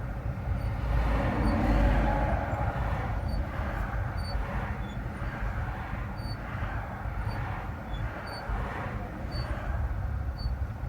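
A vehicle driving with a steady low road rumble, and a faint short squeak repeating about once a second, the creak the vehicle is being checked for.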